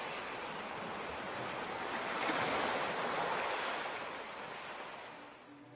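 Sea waves washing onto a beach: a steady rush of surf that swells about two seconds in, then fades away near the end.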